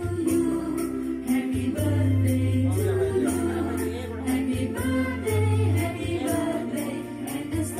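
Background music: a song with sung vocals over steady bass notes and a quick, even percussion beat.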